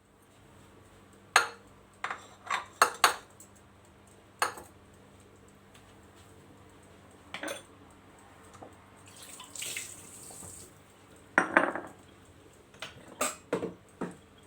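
Kitchen dishes and utensils knocking and clinking as they are handled, a dozen or so sharp separate knocks with pauses between them, with a brief hiss near the middle.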